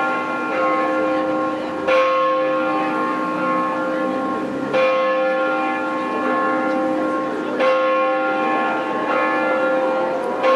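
Church bells ringing, several bells sounding together. There are four heavy strokes about three seconds apart, with lighter strokes between, and each stroke rings on into the next.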